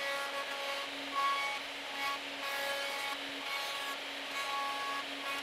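Router table running, its bit flush-trimming the edge of an acrylic pickguard against a template, under background music with held notes that change every second or so.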